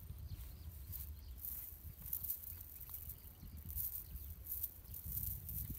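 Wind rumbling on the microphone in the open, with faint irregular high rustles on top.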